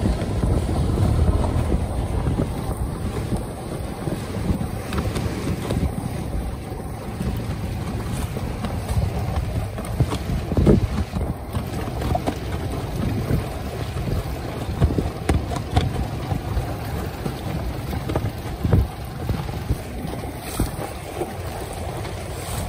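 Wind buffeting the microphone over choppy water, with waves washing against and over a stone breakwater. A few sharper knocks stand out, the loudest about eleven seconds in.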